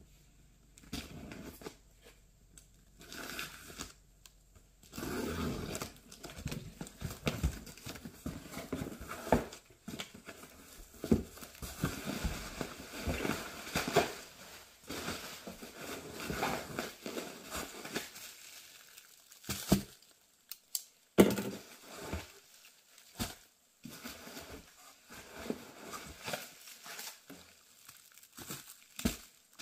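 Packing tape torn off a cardboard box, then bubble wrap and plastic-wrapped books crinkling and rustling as they are handled and lifted out. A few sharp knocks come about two-thirds of the way in.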